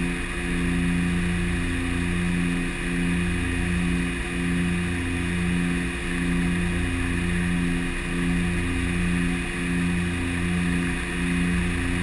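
Cockpit drone of a DHC-6 Twin Otter's two Pratt & Whitney PT6A turboprop engines and propellers during approach, steady with a throb that waxes and wanes about once a second.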